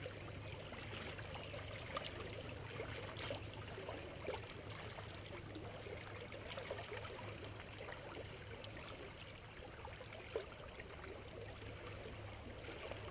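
Small waves lapping and trickling against shoreline rocks, with a few faint ticks of splashing water.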